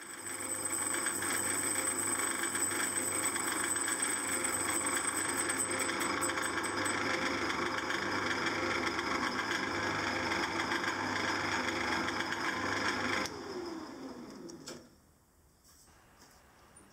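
Small metalworking lathe running steadily with a flywheel spinning in its chuck. The motor is switched off about 13 seconds in and the spindle runs down, falling quiet within about two seconds.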